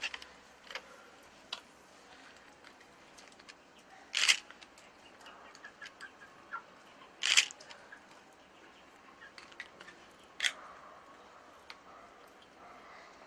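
Straight razor scraping stubble off a lathered scalp in short strokes, three of them loud and sharp, with lighter scrapes and clicks in between.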